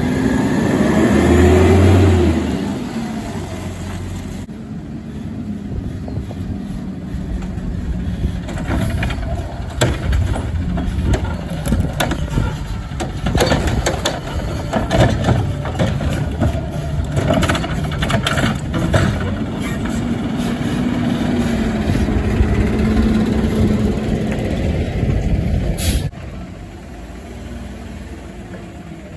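Front-loading garbage truck with a Curotto-Can carry can: the diesel engine and hydraulics run, with a rising whine early on and a string of clanks and bangs as the arm lifts and dumps a wheeled cart. Near the end the sound drops suddenly to a quieter, more distant truck running.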